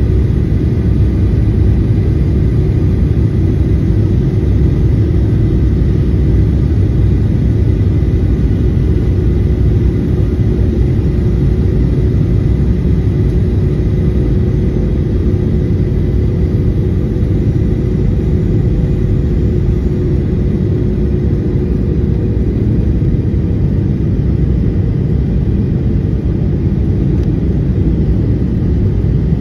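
Boeing 737-800 cabin noise on approach: the CFM56-7B turbofan engines and the airflow over the fuselage make a steady low rumble, with faint humming tones in it, one of which fades out about two-thirds of the way through.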